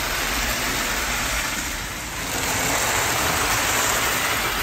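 Marx 7-inch tin toy freight train with a steam locomotive and four-wheel cars running at speed on three-rail track, a steady whirr and clatter of motor and wheels. It grows louder about three seconds in as the train passes close.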